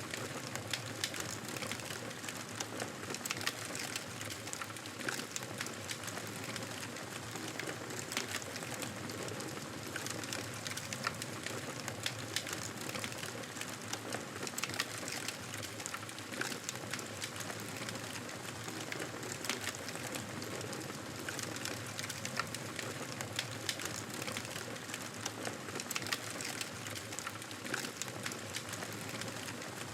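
Wood fire burning, a steady hiss and flutter of flame with frequent small, irregular crackles and pops.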